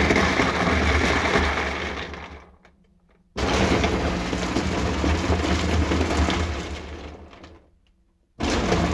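Portable mini washing machine running its wash cycle. The motor hums low under a noisy churning and starts and stops in stretches. It dies away about two and a half seconds in, starts abruptly again a second later and runs about four seconds. It dies away again and restarts near the end.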